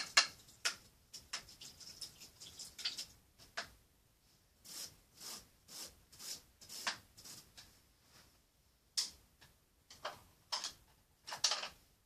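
Paintbrush working on a stretched canvas: short, irregular swishes and dabs, some close together and some a second or more apart.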